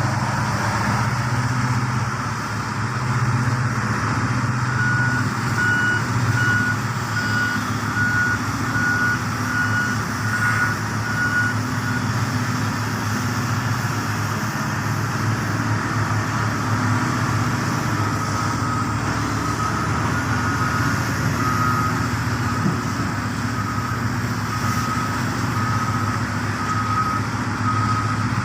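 Heavy mining machinery's diesel engine running steadily, with a reversing alarm beeping at an even pace from about five to twelve seconds in, and a second, slightly lower-pitched reversing alarm beeping through the last ten seconds.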